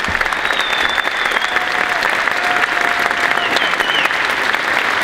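An audience applauding, many hands clapping steadily and loudly.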